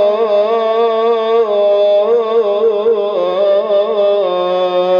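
Quran recitation: a man's voice draws out one long, ornamented melodic phrase between the words 'wa rabbu' and 'aba'ikum', the pitch rippling and stepping down three times without a break.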